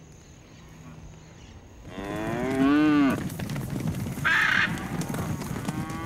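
A cow moos once, a long call rising and then falling in pitch, about two seconds in. About a second later comes a short harsh squawk from a hyacinth macaw.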